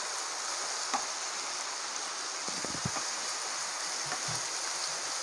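Chopped onions, green chillies and curry leaves sizzling in hot sunflower oil in a frying pan, a steady hiss, with a few faint soft knocks of a wooden spatula stirring them.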